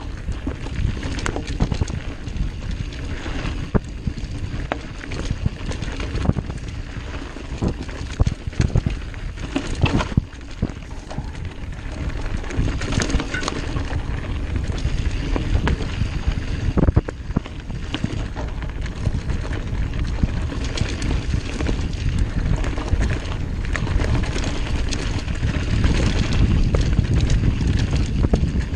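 Mountain bike riding down a dirt singletrack: tyre noise on the trail with frequent sharp knocks and rattles from the bike over bumps, and wind rumbling on the microphone.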